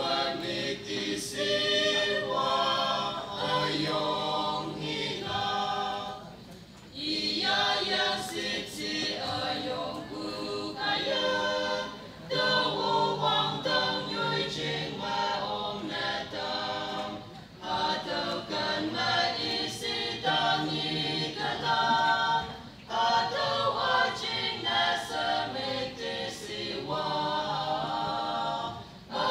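Mixed choir of young women and men singing a Konyak gospel song a cappella, in phrases with short breaks between them.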